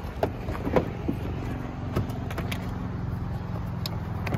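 Scattered clicks and knocks of plastic parts being handled as a charging cable is brought to an electric jet ski and its charge-port compartment is opened, over a steady low hum.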